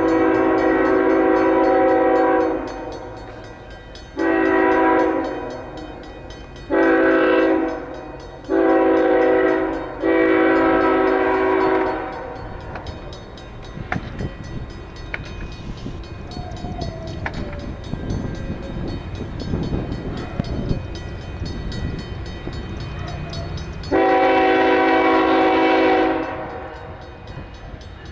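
Diesel locomotive's five-chime Nathan K5HLL air horn sounding the grade-crossing signal, long, long, short, long, then after a pause another long blast, with the low rumble of the approaching train between.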